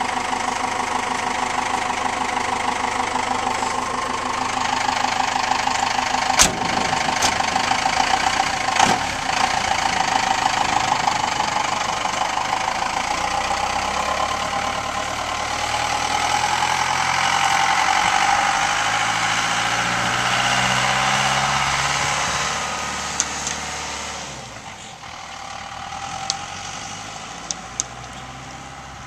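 Cummins 4BT four-cylinder turbo diesel idling steadily through tall twin exhaust stacks, then rising in pitch as the truck pulls away. It fades into the distance over the last few seconds.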